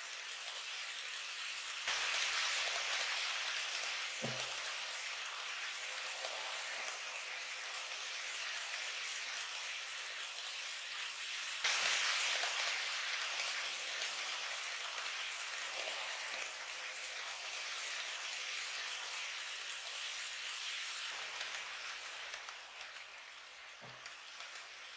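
N-scale model train, a 113 series in Yokosuka colours, running on track close by: a steady hissing rattle of wheels and motor. It gets louder about two seconds in and again about twelve seconds in, then fades near the end.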